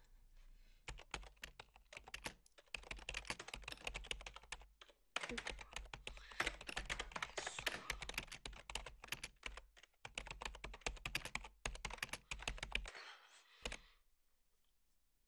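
Rapid typing on a desktop computer keyboard, the keystrokes coming in quick runs with brief pauses between them. The typing stops about two seconds before the end, with one last key press just after.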